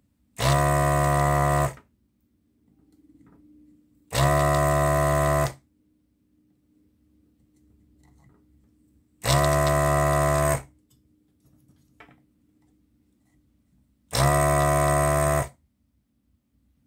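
Electric vacuum desoldering gun's pump buzzing in four bursts of just over a second each, a few seconds apart. Each trigger pull sucks molten solder out of a riveted through-hole on a circuit board.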